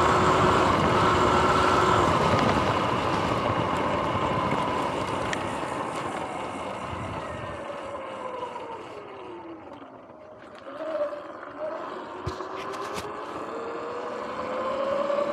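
Sur-Ron X electric dirt bike riding, its motor whining under a rush of wind and tyre noise. The whine falls in pitch and the noise fades as the bike slows almost to a stop about ten seconds in, then the whine rises again as the bike accelerates.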